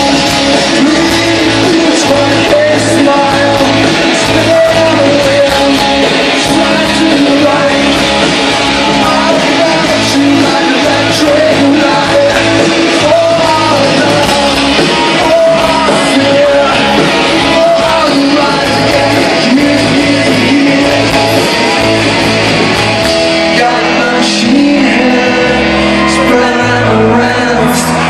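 Live rock band playing loud with a singer, with the crowd around it. For a few seconds near the end a note is held while the drums ease off.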